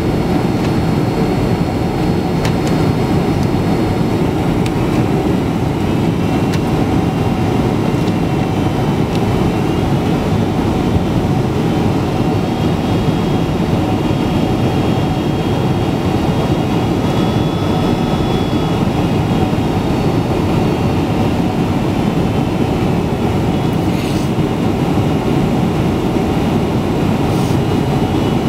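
Steady cabin noise of a jet airliner descending toward landing: a constant drone of engines and rushing air heard from a window seat, with faint high whistling tones that come and go.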